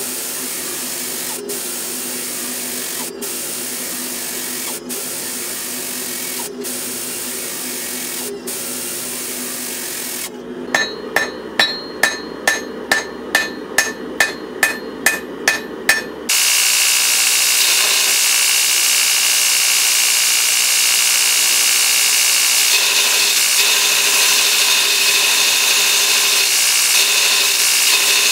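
A hydraulic forging press runs with a steady hum, dipping briefly about every second and a half. About ten seconds in, a hand hammer strikes a hot Damascus billet on an anvil with about a dozen ringing blows, two a second. Then a belt grinder grinds steel with a loud, steady hiss to the end.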